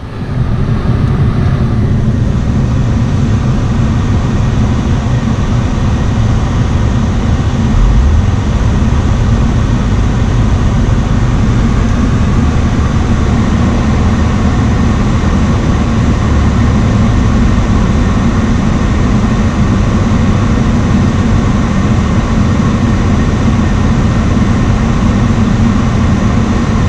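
2003 Honda Accord running with the A/C on: engine idling and the electric cooling fans blowing in a loud, steady rush. The newly installed A/C compressor is working, the line ice cold.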